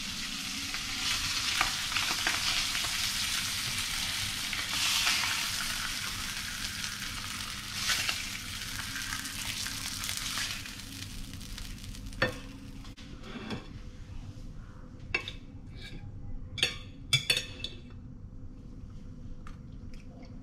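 Fish fillets sizzling in hot oil in a stainless-steel frying pan as they are lifted out with a slotted spatula. The sizzle fades about twelve seconds in, followed by a few sharp clinks and taps of utensils on the pan and plate.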